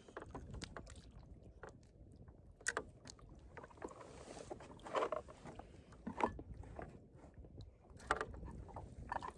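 Steady low rumble of wind and water around a kayak at sea, with a few scattered short knocks and bumps from handling on the boat.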